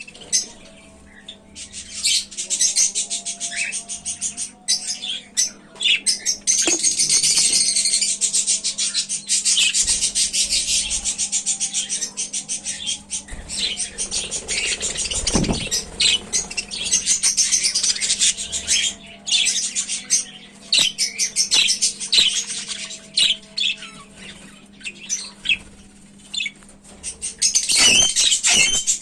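Bird chicks calling in long runs of rapid, high-pitched cheeps, in bursts several seconds long, over a steady low hum, with a single low thump about midway.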